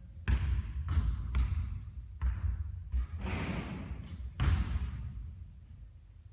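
A basketball bouncing: about six thuds at irregular spacing, each fading out briefly.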